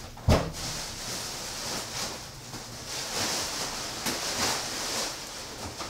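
A black plastic garbage bag rustling and crinkling as bagged bedding is emptied and pushed into a front-loading dryer drum, with one thump about a third of a second in.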